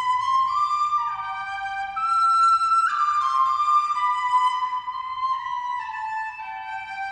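Music: a slow single-line melody of held notes, stepping from one note to the next every half second to a second.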